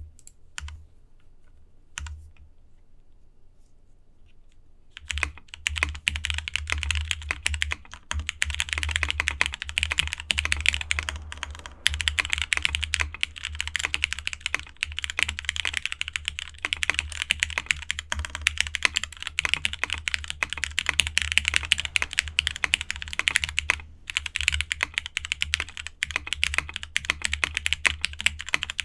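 Typing on a custom mechanical keyboard: Matrixlab Vita with lubed, filmed Cherry Hyperglide MX Black linear switches on an aluminium plate and DCS Deadbeats keycaps. A few separate keystrokes, then fast continuous typing from about five seconds in, pausing briefly twice.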